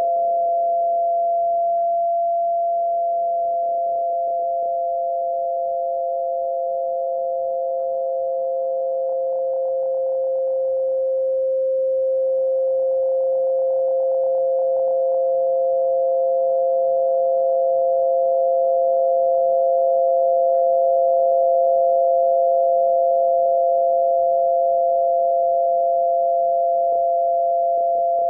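Two steady electronic sine tones, a little apart in pitch, sounding together without a break: a synthesized tinnitus-masking tone.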